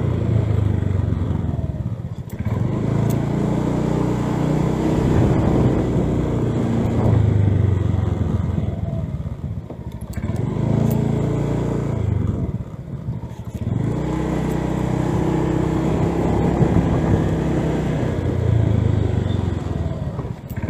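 Motorcycle engine running while riding at low speed, heard from the rider's seat; the engine note drops away briefly about three times as the throttle eases off, then picks up again.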